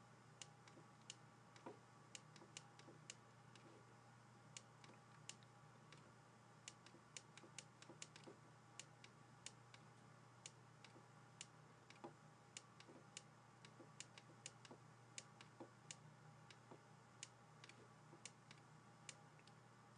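Faint, irregular clicks and taps, a few a second, of a stylus on a drawing tablet while handwriting a chemical structure, over a low steady hum.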